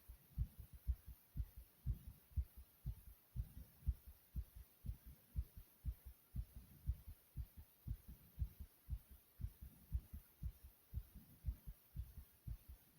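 A heartbeat beating fast: a steady, quick rhythm of short, low thumps.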